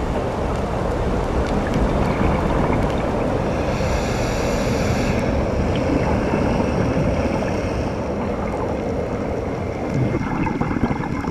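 Steady, muffled rushing noise of water heard through an underwater camera housing on a reef dive, with a brief higher hiss about four seconds in.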